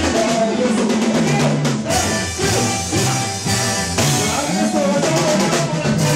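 Upbeat church worship music driven by a drum kit, with a moving bass line and other instruments.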